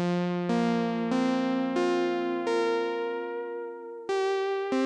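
Roland GAIA SH-01 synthesizer playing a keyboard patch in chords. A new chord is struck about every half second to second, each starting bright and mellowing as it fades.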